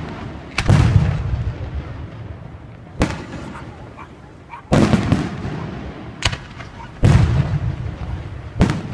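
Aerial fireworks shells bursting in the sky: about six sharp bangs a second or two apart, each followed by a rolling rumble that dies away.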